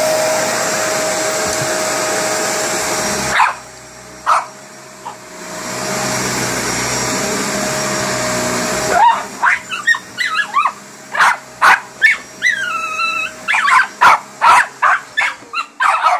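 Upright vacuum cleaner running with a steady hum over carpet. Its noise drops away about three seconds in, with a single bark, then spins back up. For the last seven seconds a dog barks rapidly and repeatedly over the running vacuum, with one longer drawn-out call among the barks.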